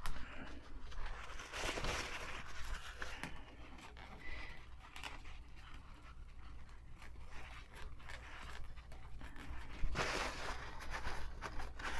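Dry brush scrubbing inside the end housing of a Singer 223 sewing machine, clearing old oil and dust: quiet bristly swishing in short bouts, strongest about two seconds in and again near the end.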